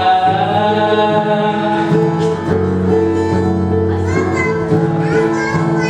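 Live worship-style music: guitar and backing instruments playing steady chords between sung lines, with a held vocal note trailing off at the start.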